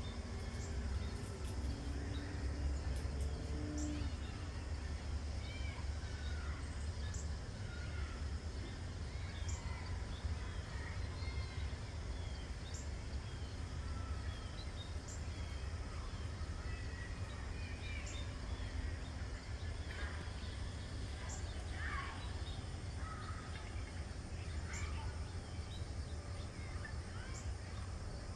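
Outdoor ambience of songbirds chirping and calling here and there, with a short high note repeating about every two to three seconds, over a steady low rumble.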